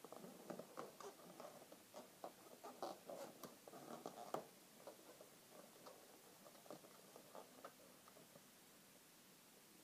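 Faint rubbing and squeaking of latex twisting balloons under the fingers as they are twisted and pressed together, many small scratchy sounds that thin out after about six seconds.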